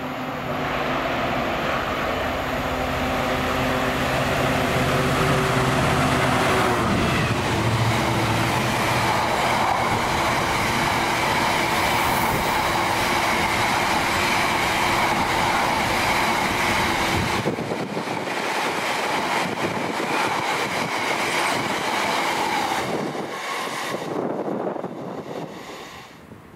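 A Class 66 diesel freight locomotive, with its two-stroke V12 engine running, passes at speed without stopping. Its steady engine tones are heard for the first several seconds, then a long rake of freight wagons rumbles and clatters past on the rails with a ringing wheel noise. The sound fades away near the end.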